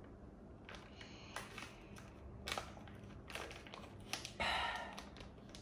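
Plastic sweet packaging crinkling and rustling as it is handled and opened, with scattered small clicks and a louder crackle about four and a half seconds in.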